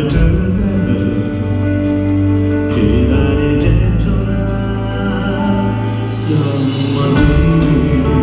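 Live band music at a pop concert, with held bass notes that change about three seconds in and again near the end, under melodic lines.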